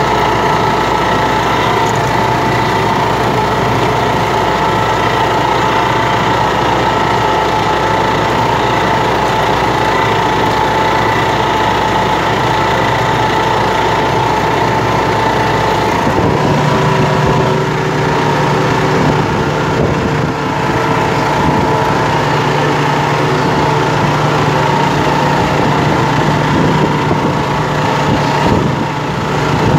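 Massey Ferguson 3095D tractor's diesel engine running steadily under load while pulling a four-bottom plough through the soil. The low part of its drone changes about halfway through.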